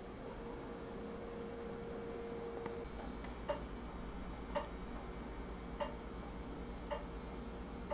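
Quiet room tone with a faint steady hum, a thin steady tone for the first few seconds, then light sharp ticks about once a second from about three and a half seconds in.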